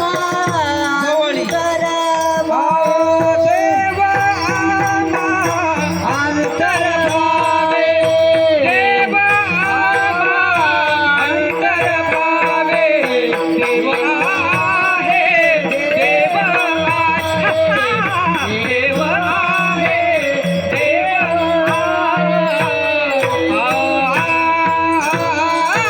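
Marathi devotional abhang: a singer draws out long, gliding melismatic vowel lines over a steady drone and hand percussion.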